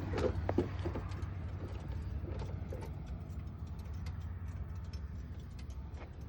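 Car engine running with a low steady drone and a light, irregular ticking knock over it, slowly fading: the knock of two spun rod bearings.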